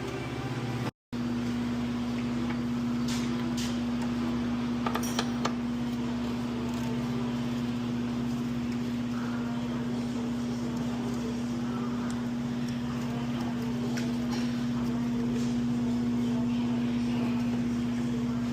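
A steady mechanical hum holding one constant tone, with a few faint clicks and taps over it.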